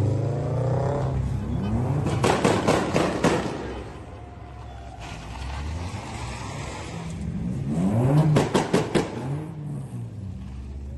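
Car engines revving as the cars pull away one after another, the pitch climbing and dropping. Twice there is a quick run of sharp crackling pops from an exhaust, the loudest sounds.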